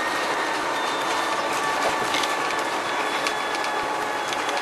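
Bus engine and drivetrain running steadily at cruising speed, heard inside the cabin at the back, with a few steady whining tones over the road noise and small rattling clicks from the body.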